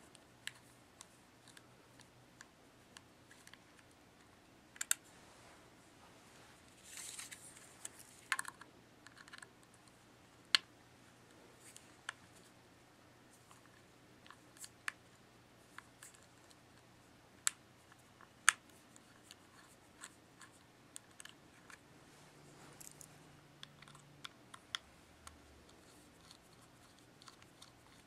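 Faint, scattered clicks and a few short scratches: a Torx T8 screwdriver backing out the small screws that hold a MacBook hard drive in its metal caddy.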